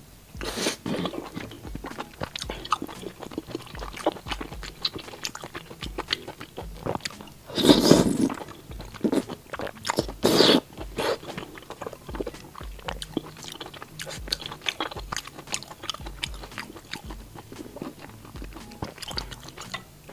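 Close-miked eating of noodles in spicy chili-oil broth: wet chewing clicks throughout, broken by a few loud slurps, the loudest about eight seconds in and another just past ten seconds.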